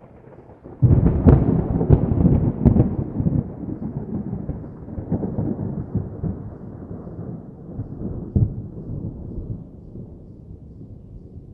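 Thunder: a sudden loud crack about a second in, with more cracks over the next couple of seconds, then a long rolling rumble that slowly dies away.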